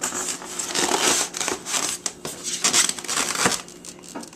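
Cardboard box and packing material rustling, crinkling and scraping in irregular bursts as a boxed model tool chest is slid out of its box.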